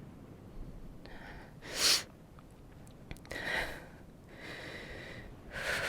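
A woman breathing unsteadily: a sharp, loud intake of breath about two seconds in, then three slower, softer breaths in and out.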